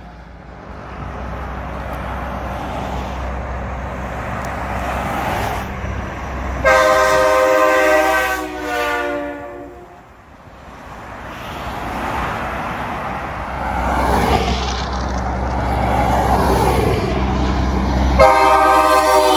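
Heavy trucks passing on a highway, the rumble of diesel engines and tyres swelling and fading as each goes by. About seven seconds in a truck sounds a loud multi-note horn chord for about three seconds, and another long horn blast starts near the end.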